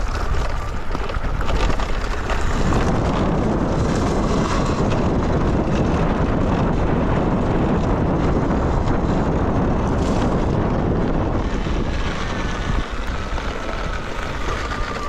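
Wind rushing over the microphone while riding a Talaria Sting electric dirt bike, with a faint thin whine in the last few seconds.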